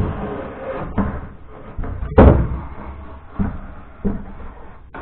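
A model railway layout module being slid across its supporting frame: scraping and knocking, with one loud bang about two seconds in.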